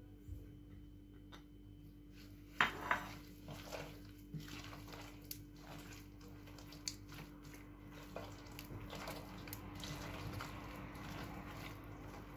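Faint squishing and rubbing of a hand working soft butter-and-sugar dough in a glazed terracotta bowl, with a single knock against the bowl about two and a half seconds in and the rubbing growing busier in the second half. A faint steady hum lies under it.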